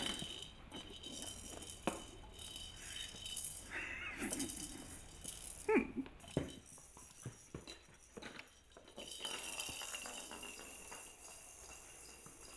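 Plastic maraca rattling in irregular shakes and scrapes as a puppy chews, paws and carries it, with a brief squeak about six seconds in.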